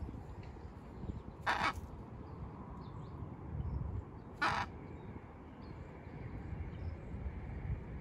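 Miligold macaw giving two short, harsh squawks, one about a second and a half in and another about three seconds later.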